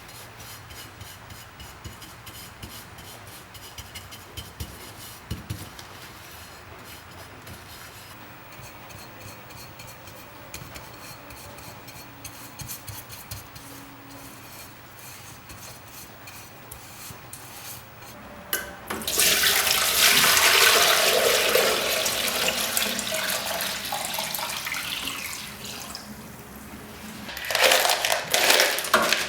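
Water rushing, as from a tap, starting loudly about two-thirds of the way through, dropping off briefly and starting again near the end. Before it there are only faint small ticks and taps.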